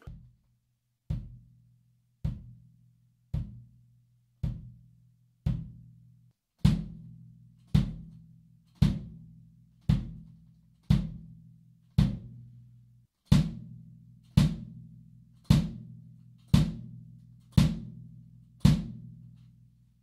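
Premier Genista 22" bass drum, Evans EMAD coated batter head and Evans Calftone resonant head, struck with a felt beater about once a second, each a low boom with a short ring. The heads are heavily damped by the EMAD ring and felt strips on both heads. The first half-dozen hits are softer; from about seven seconds in they are struck harder.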